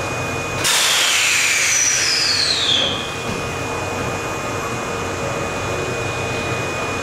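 A sudden hiss of compressed air from a standing Osaka Metro 21 series subway train, with whistling tones falling in pitch, that dies away after about two seconds. The train's equipment then hums steadily.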